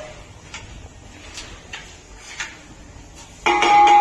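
A few faint knocks, then about three and a half seconds in a steel lid clanks against a metal cooking pot and rings on.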